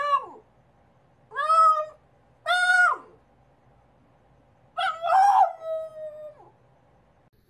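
French bulldog howling in four pitched calls: a short falling one at the start, two brief rising calls about a second apart, and a longer wavering one near the end.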